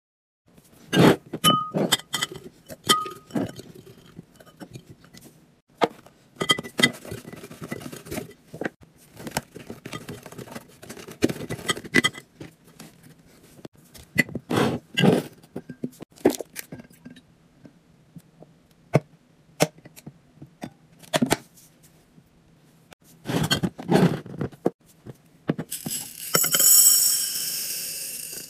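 Groceries and containers being handled and set down while restocking a fridge or pantry: irregular clinks, knocks and scrapes of jars, bottles and plastic containers. Near the end comes a few seconds of hissing, crinkling noise.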